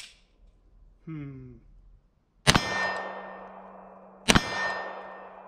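Two pistol shots from a Polymer80 PF940V2 Glock 17-pattern 9mm handgun, about two seconds apart, each followed by steel targets ringing for a couple of seconds. A short sharp click comes right at the start.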